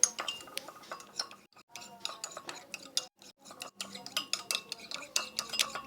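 A metal spoon stirring glue and water in a container for slime, with quick, irregular clinks and scrapes against the container's sides.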